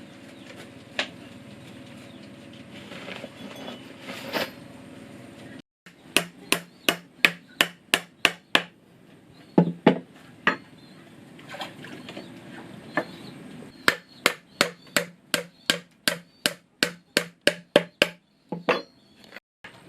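Hammer driving nails into wood, in quick even strikes of about three a second. There are two runs of strikes with a short pause between them, and the pause holds a few heavier, deeper knocks.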